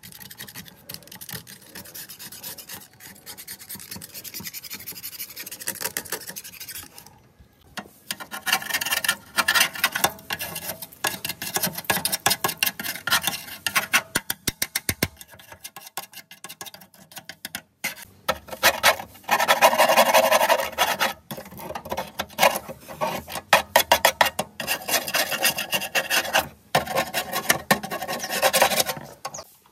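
Hand scraper rasping flaking paint and rust off the steel motor housing and base of a cut-off saw in quick repeated strokes, softer for the first several seconds and louder after, with a few short pauses.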